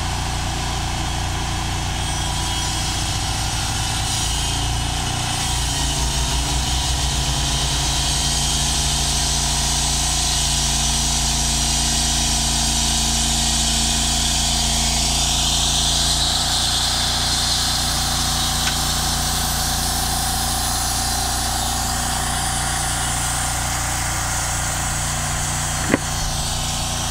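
Portable band sawmill running, its engine humming steadily while the band blade cuts through a log, with a brighter hiss of sawing from about halfway through. One sharp knock near the end.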